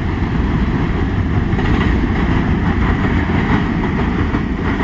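Low rumble of a freight train moving away just after its last car has passed, mixed with wind buffeting the phone's microphone.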